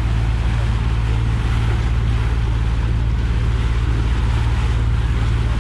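Fishing charter boat under way: its engine runs at a steady, even hum, with a constant rush of water spraying along the hull.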